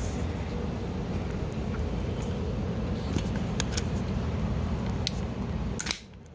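Steady low background hum with a few light clicks and taps in the second half, ending in a sudden drop near the end.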